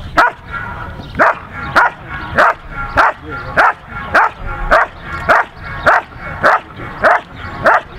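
German Shepherd Dog barking in a steady, even rhythm, a little under two barks a second, at a motionless helper. This is the hold-and-bark of a Schutzhund protection routine, where the dog guards the helper by barking without biting.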